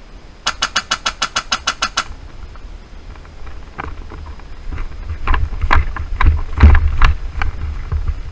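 Airsoft rifle firing a rapid string of about ten shots, roughly seven a second, about half a second in. It is followed by irregular knocks and thumps over a low rumble, loudest near the end.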